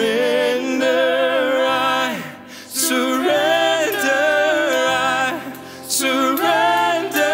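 A woman singing a slow worship song at a microphone over held chords from piano and band, in long phrases that pause briefly about two seconds and five and a half seconds in.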